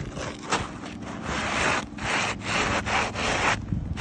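Gritty scraping of an asphalt shingle being slid and pressed into place against the granule-coated roof shingles. It comes as several rubbing strokes, the longest and loudest in the second half.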